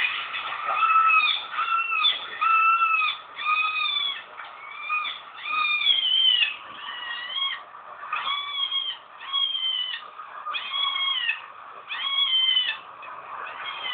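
A small animal giving a steady run of high-pitched, kitten-like mewing cries, about one a second, each cry arching up and down in pitch.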